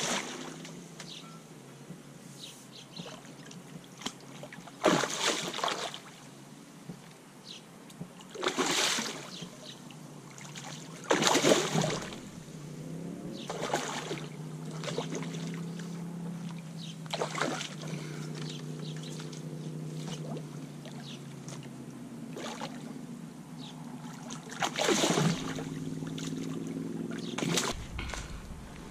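A hooked fish splashing and thrashing at the water's surface as it is played in on a float rod: a series of sudden sharp splashes a few seconds apart. A low steady drone runs underneath through much of the middle.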